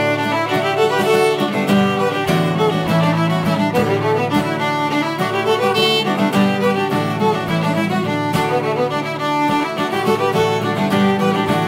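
Instrumental intro music, a melodic tune playing at a steady level.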